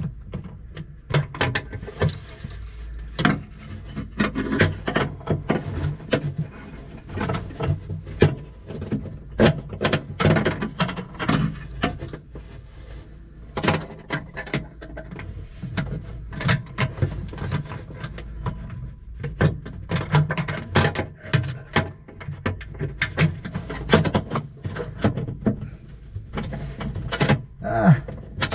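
Irregular clicks, taps and knocks of hand tools and metal fittings being worked, with what may be a ratchet wrench turning.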